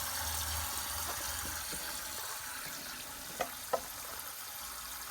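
Water spraying from a burst pipe under street supply pressure, a steady hiss, with a low hum underneath and two light knocks a little past halfway.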